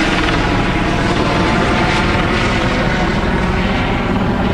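Police helicopter circling low overhead, its rotor and turbine engine running loud and steady.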